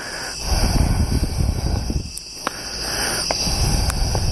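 Steady night chorus of crickets, with uneven low rumbling and a few sharp clicks of handling noise over it.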